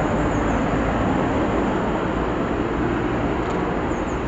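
Steady rumble and hiss of road traffic, with a faint engine hum.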